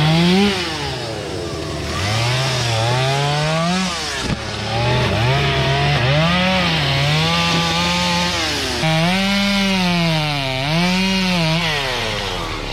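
Chainsaw cutting wood, its engine pitch repeatedly rising and falling as it revs up and drops under load in the cut.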